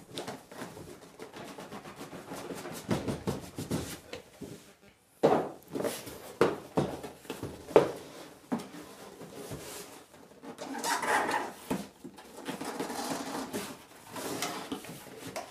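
Cardboard packaging being handled: rubbing and scraping as a printed outer sleeve is slid off a corrugated cardboard box and its lid flaps are folded open, with several sharp knocks of cardboard on the table about five to eight seconds in.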